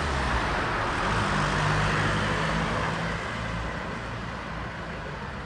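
City street traffic: a vehicle's engine and tyre noise swells as it passes close, loudest about two seconds in, then fades back into the steady hum of traffic.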